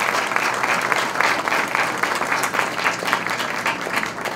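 Audience applauding: dense, steady clapping that begins to die down near the end.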